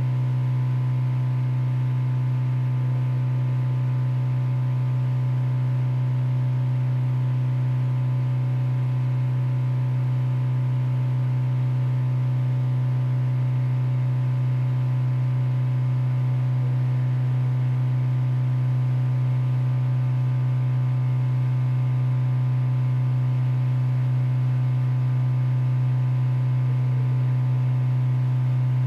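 HIVOLT high-voltage test reactor humming, very loud and unbroken: one deep hum with fainter overtones above it, while energised for a 235 kV withstand test on 132 kV gas-insulated switchgear.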